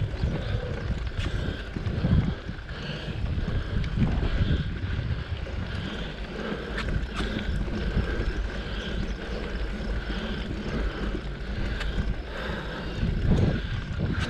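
Mountain bike rolling over a rough dirt track, with wind rumbling on the microphone and the bike giving off scattered clicks and rattles as it goes over the ruts.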